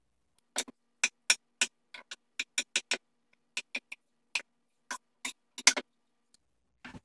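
A large kitchen knife chopping pineapple on a wooden cutting board: a run of sharp, irregular knocks, about three or four a second, that stops about a second before the end.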